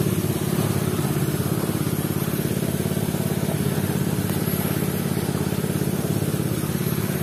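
Small single-cylinder Robin engine running steadily at a constant speed, a fast even putter, driving the pepper-washing setup.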